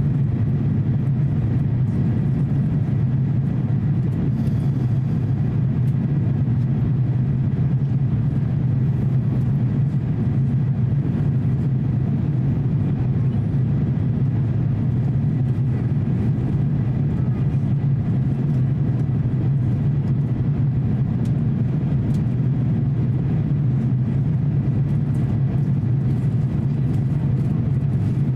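Steady cabin noise inside an Airbus A350-900 climbing out after takeoff: its Rolls-Royce Trent XWB turbofans and the airflow past the fuselage. It is a constant low hum with an even hiss over it.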